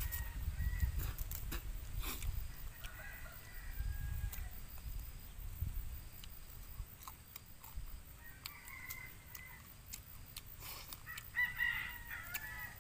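Domestic chickens: a rooster crowing, with some clucking, in short faint calls that come and go several times, the clearest near the end.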